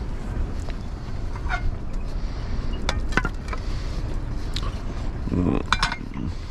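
Strong wind buffeting the microphone, with scattered clicks and knocks.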